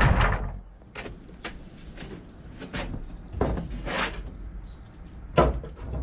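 Wooden boards being knocked and pried loose by hand during demolition of a timber structure: a loud knock at the start, then scattered wooden knocks and a short stretch of scraping, with another sharp knock near the end.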